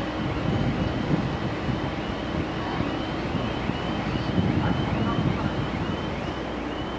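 Korail 311000-series electric multiple unit approaching along the track: a steady low rumble with wind on the microphone. A faint high chirp repeats about twice a second over it.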